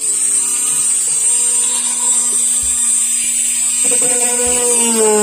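Electric drill running steadily while drilling screw holes, a high whine with a hiss, its pitch dropping about four seconds in.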